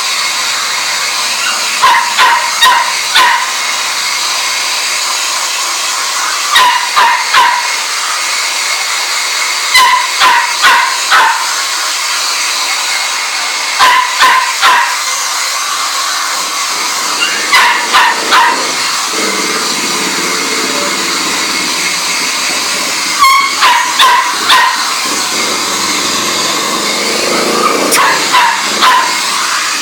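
A small dog, a Chihuahua, yapping in quick runs of three or four barks, the runs coming every few seconds, over a steady rushing hiss of air.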